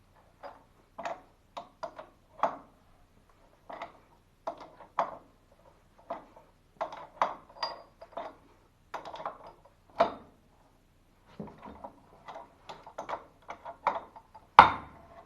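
Irregular metal clinks, taps and knocks as a homemade key tool is worked against the bolts of an old valve fitting, with one sharp, loud knock near the end.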